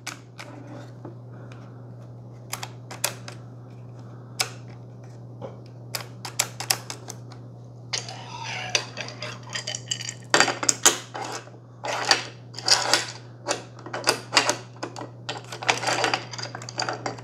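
Manfrotto 504X fluid video head's quick-release plate being worked by hand: the release button clicks and the plate slides and scrapes in its clamp. There are scattered sharp clicks and light clatter, more frequent in the second half, over a steady low hum.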